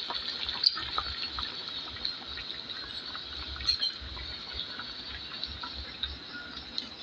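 Water running steadily from a kitchen tap, with small clicks and knocks of things being handled under it, as when rinsing vegetables.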